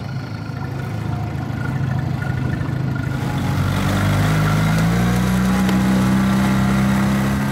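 An engine speeds up over several seconds, its pitch rising, then runs steadily at the higher speed.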